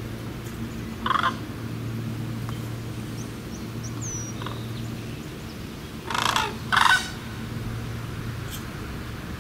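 Sandhill cranes calling in brief calls: one about a second in, then two louder ones close together around six to seven seconds in.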